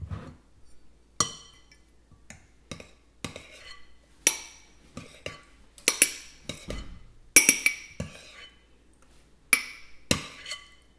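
A spoon clinking against a glass measuring cup and a glass mixing bowl as whipped cream is scooped, a dozen or so sharp clinks at irregular intervals, each with a short ring.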